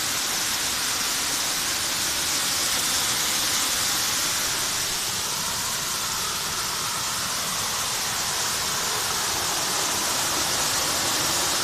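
Water spraying under pressure from a failed irrigation sprinkler whose cart has tipped over, pouring over the maize: a steady hiss.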